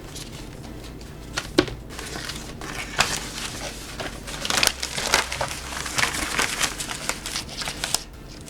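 Paper-backed adhesive puzzle sheet off a roll, crinkling and rustling as it is unrolled and handled over the puzzle, with a sharp tap about a second and a half in.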